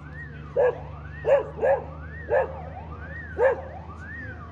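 A dog barking five times, irregularly, over an alarm tone that sweeps up and then down about once a second and a low steady hum.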